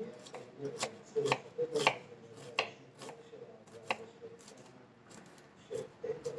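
Kitchen knife slicing spring onion bulbs on a wooden chopping board: irregular sharp taps as the blade meets the board.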